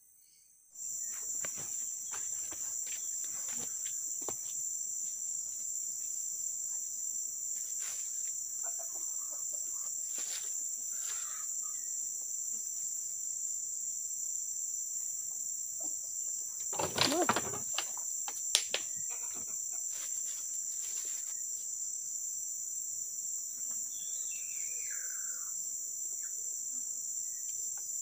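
Steady high-pitched chorus of tropical forest insects, starting about a second in. A brief louder clatter of handling comes about two-thirds of the way through, and a short falling call sounds near the end.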